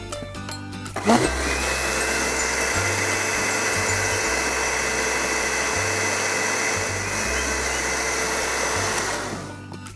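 Electric countertop blender starting up about a second in and running steadily with a motor whine as it purées dragon fruit with sugar and water into a drink, then winding down near the end.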